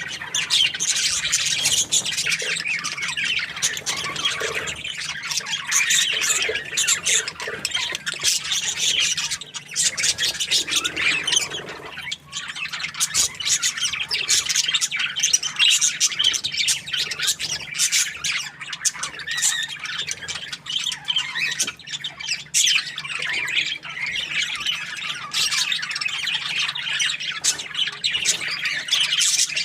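A group of budgerigars chattering and chirping, many calls overlapping without a break.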